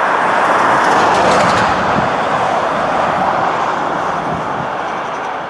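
Norfolk Southern diesel freight locomotive passing with its train of boxcars: a steady noise of engine and steel wheels on rail.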